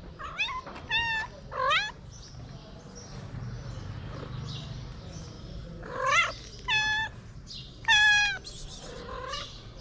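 A street cat meowing: three meows in quick succession, a pause of about four seconds, then three more, the one about eight seconds in the loudest, and a fainter one near the end. The cat is meowing at a person to ask for food.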